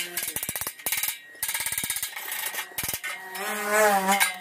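Hand wire brush scrubbing slag off a fresh stick-weld bead on thin steel tubing in quick back-and-forth strokes. Near the end a wavering pitched ring or hum sounds for about a second and is the loudest thing heard.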